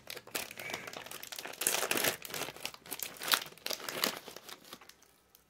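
A crinkly snack bag being handled and pulled open, with dense irregular crackling that dies away shortly before the end.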